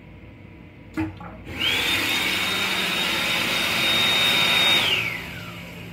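Sensor-activated faucet in a commuter train lavatory: a click, then water pours into the basin with a high motor whine that rises, holds steady, and winds down as the flow stops about five seconds in.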